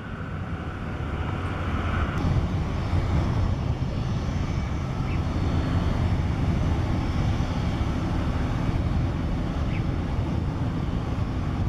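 Light single-engine propeller airplane's piston engine running, a steady low drone.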